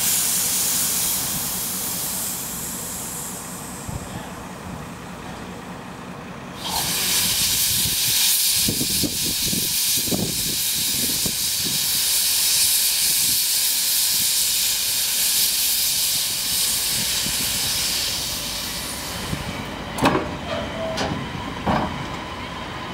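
DSB steam tank locomotive letting off steam with a loud hiss, fading over the first few seconds. About six and a half seconds in a much louder hiss starts abruptly and runs for about thirteen seconds: steam blowing from the open cylinder drain cocks as the engine starts to move. A few sharp clanks near the end.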